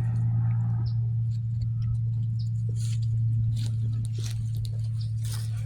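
A steady low hum with scattered light ticks and scuffles and a few faint high squeaks from five-week-old puppies moving about and playing.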